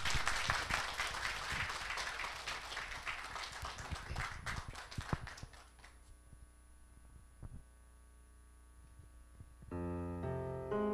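Audience applauding, the clapping thinning out and dying away over about five seconds. After a quiet gap with a faint click, piano music begins near the end.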